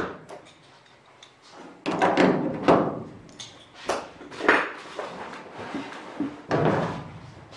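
A handful of short knocks and clunks as riveting tools are handled against the aluminium wing skin and ribs between rivets.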